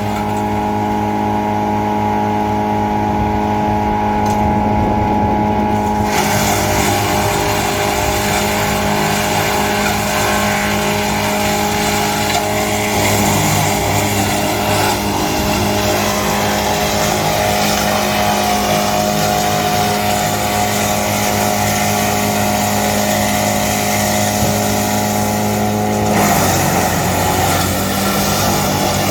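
Tractor-mounted GL&D M175DS woodchipper and its tractor running with a steady mechanical hum. About six seconds in, the broad hissing noise of wood being fed through and chipped joins it. Near the end the machine's pitch dips and shifts.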